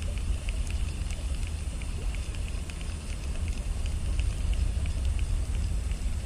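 Wind buffeting the microphone, a steady low rumble, with faint scattered crackling ticks on top.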